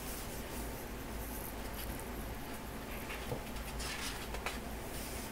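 Paper rustling and brushing as the pages of a large photobook are handled and turned, a few soft rustles about three to four seconds in, over a steady low hum.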